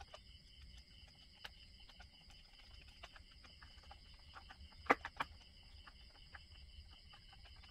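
Small clicks and taps of a screwdriver and metal parts on a chainsaw carburetor, with two sharper clicks about five seconds in. Insects chirp steadily in a high, even pulse behind them.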